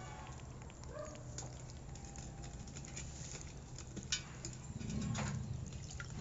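Water sloshing and splashing in a steel pot, with irregular light clicks of crab shells against the metal, as live crabs are rinsed by hand. The clicks and splashes grow busier about four seconds in.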